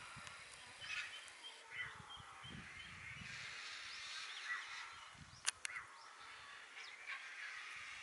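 Scattered short bird calls and chirps over a faint open-air hiss, with low rumbles and two sharp clicks about five and a half seconds in.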